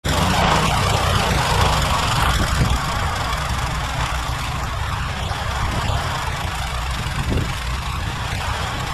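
John Deere 1032 snowblower's engine running steadily, with a rushing noise over it that is strongest in the first couple of seconds.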